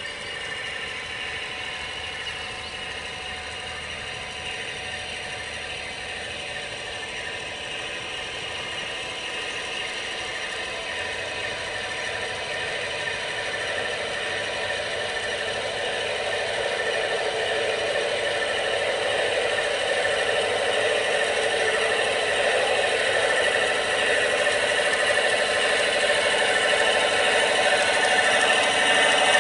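Pair of USA Trains NW2 G-scale model diesel switchers running with a freight train: a steady diesel-engine-like running sound with a rattle of wheels on the track, growing steadily louder as the locomotives come closer.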